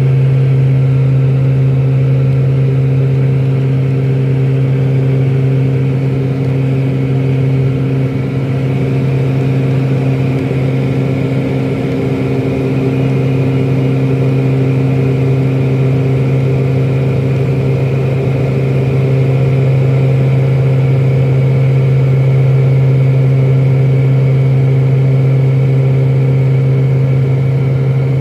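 Turboprop airliner's engines and propellers droning steadily in the climb after takeoff, heard from inside the cabin: a strong low propeller hum with a fainter high turbine whine above it.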